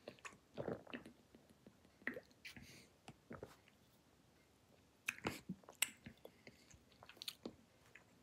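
Faint mouth sounds of a person drinking beer from a glass bottle and tasting it: swallows at first, then scattered short lip smacks and clicks, with a small cluster about five seconds in.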